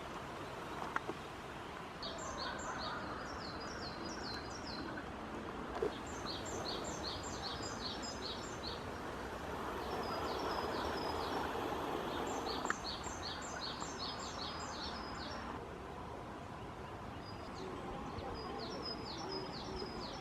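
A songbird singing four bouts of quick, high repeated notes, each bout about three seconds long, over the steady rush of a mountain stream.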